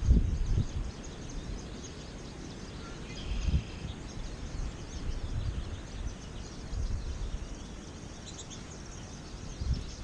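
Wind buffeting the microphone in gusts, loudest right at the start and again twice later, with the faint high twittering of American goldfinches feeding on the ground.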